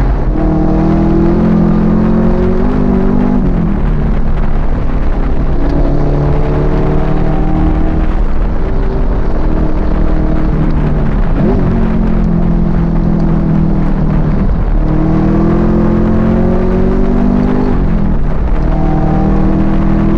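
Race muscle car's engine heard from inside the cabin at full throttle on track. Its pitch climbs steadily, then drops as the driver lifts, brakes or shifts, about five times over, with sharp dips before it pulls again.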